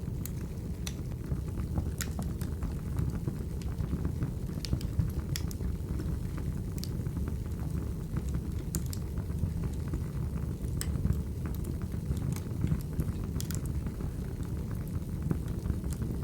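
Wood fire burning in a fireplace: a steady low rumble with sharp crackles and pops at irregular moments.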